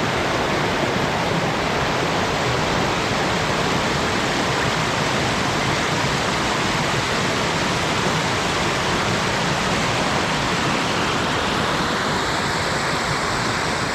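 Steady rushing water, loud and even, like a mountain stream or cascade running close by.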